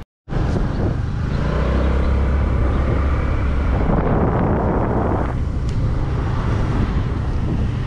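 Two-wheeler being ridden along a road, its engine running steadily under a heavy rumble of wind on the microphone, after a brief silent gap at the very start.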